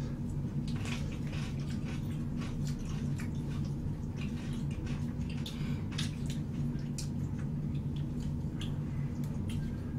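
Close-miked eating sounds of saucy braised chicken (jjimdak) and glass noodles: wet chewing and slurping with scattered sharp mouth clicks, over a steady low hum.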